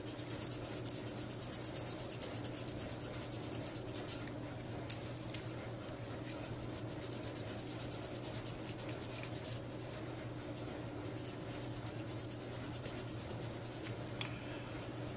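Hand sanding with a folded strip of 220-grit sandpaper on the cured acrylic filling in a metal saxophone mouthpiece's bite plate: quick back-and-forth scratching strokes, several a second, over a steady low hum.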